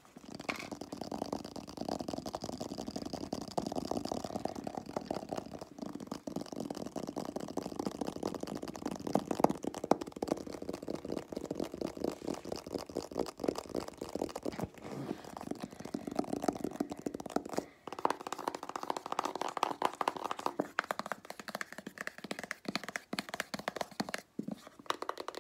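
Fast hand sounds close to the microphone: fingernails quickly tapping and scratching a hard white surface, a dense run of clicks and rustles with short pauses.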